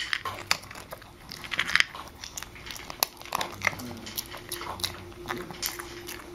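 Chihuahua/Pomeranian mix eating from his bowl right at the microphone: chewing with irregular sharp crunches and clicks, several a second.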